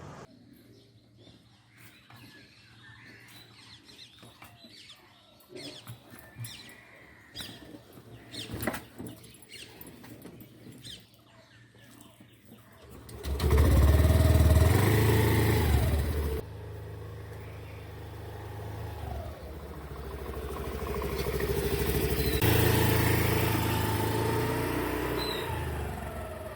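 Several seconds of faint clicks and knocks. Then, about halfway through, a motor vehicle engine comes in suddenly and loud, running with pitch rising and falling, and it grows louder again near the end.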